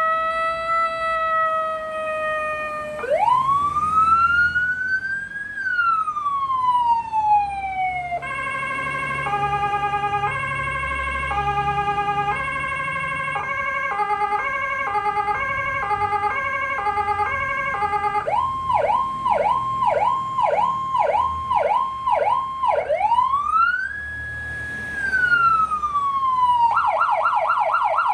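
Electronic emergency-vehicle siren cycling through its tones. First comes a slow wail that rises and falls, then a stepped multi-note pattern and a faster alternating pattern. After that a yelp sweeps up and down about twice a second, followed by another slow rise and fall, and a rapid warble near the end.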